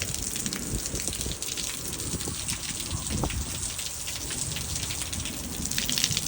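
Steady rain falling, with many separate drops tapping on surfaces.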